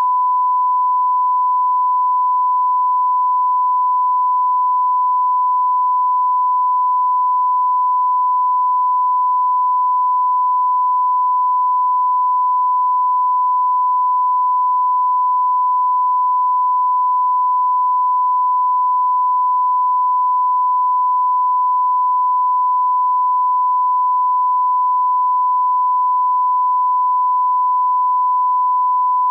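A steady, unbroken 1 kHz reference tone: the line-up test tone that plays with SMPTE colour bars at the head of a programme tape, used to set audio levels.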